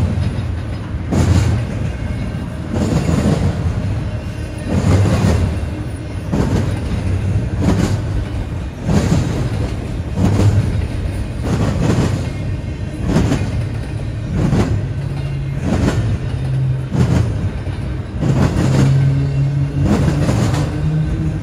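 Double-stack intermodal container train rolling past on well cars: a steady rumble of wheels on rail, with clacks about once a second as the cars go by.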